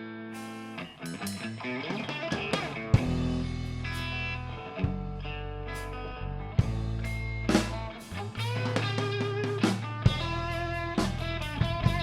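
Background rock music with electric guitar and drum kit.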